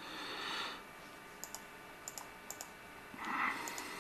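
Computer mouse being clicked: three quick double clicks in the middle, each a press-and-release pair, with a short soft noise at the start and another near the end.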